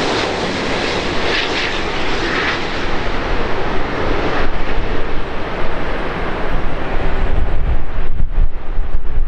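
Jet airliner on approach to land passing close by, a continuous loud engine roar. Near the end the hiss fades and the deep rumble grows.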